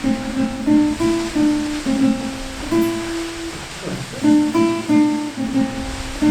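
Slow acoustic guitar music, single plucked notes ringing one after another, over a steady rush of water.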